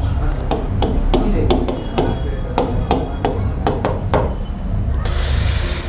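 Writing tool tapping on a board in an even rhythm, about three taps a second, as when dotting lines in a drawing, with a short scratchy hiss of a stroke about five seconds in.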